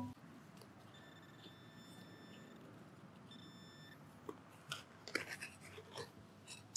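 Handheld pinpointer probe sounding its steady high-pitched alert tone for about a second and a half, then again briefly, as it is held over a target in the turf. A few faint scrapes and clicks of digging follow.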